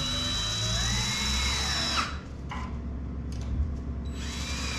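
Cordless drill driving pocket-hole screws into a wooden cross brace. The motor's pitch climbs and then falls as each screw goes in. It stops about two seconds in, a few light clicks follow in the pause, and it starts again near the end for the next screw.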